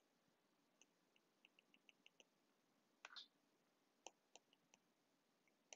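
Faint ticks and taps of a stylus on a tablet's glass screen during handwriting: a quick run of small taps about a second and a half in, a short scratch about three seconds in, then a few more taps. Otherwise near silence.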